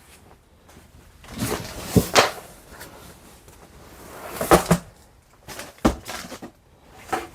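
Rummaging through a box of stored belongings: rustling, with several sharp knocks of items or box parts being moved.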